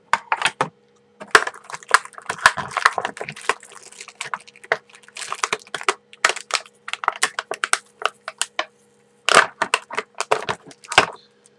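Plastic wrapping around HeroClix miniature figures crinkling and crackling as it is handled and pulled open, in quick irregular crackles with a short pause about a second in and the loudest crackles near the end.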